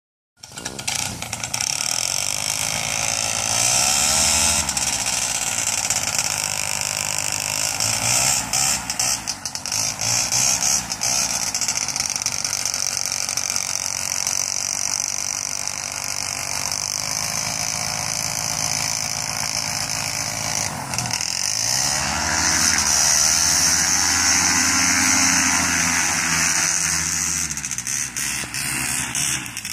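Paramotor engine and propeller running steadily, revved briefly about four seconds in, then throttled up for several seconds for a launch attempt as the wing comes overhead, easing back near the end.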